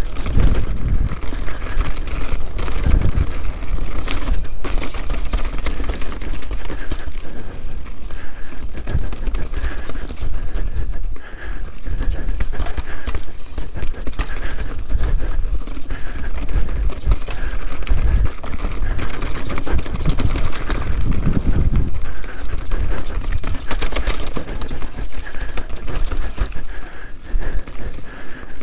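Canyon Sender downhill mountain bike descending a rocky, rough trail at speed: continuous tyre roar over gravel and stones with frequent clattering knocks from the bike and suspension, under heavy wind rumble on the microphone.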